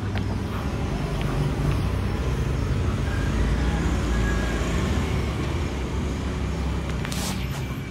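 Steady low rumble of road traffic, with a short hiss near the end.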